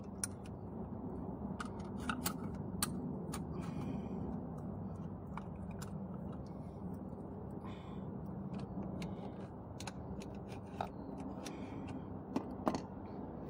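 Scattered sharp clicks and short scraping snips of red-handled pliers working on a shopping-cart caster wheel, over a steady low background hum.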